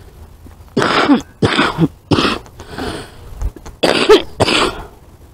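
A person coughing in a fit, about six harsh coughs in quick succession.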